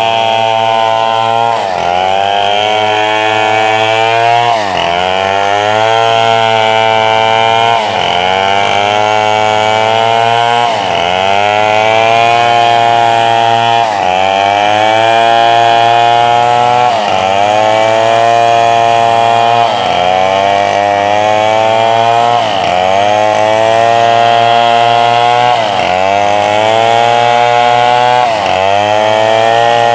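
Two-stroke Shinsaw chainsaw ripping a large acacia log lengthwise, running at high revs under load. Its engine pitch sags sharply and climbs back about every three seconds as the bar bites into the cut.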